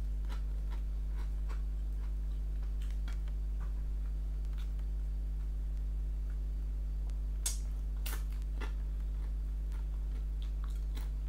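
Close-up eating sounds: crisp papadum crunching and chewing, heard as scattered small clicks, with two sharper crunches about seven and a half and eight seconds in. A steady low hum runs underneath.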